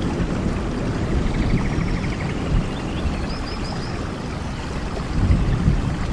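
Steady heavy rain with a dense rushing noise and a few heavier low surges, and faint birds chirping over it, with a short trill about a second in and a quick run of chirps past the middle.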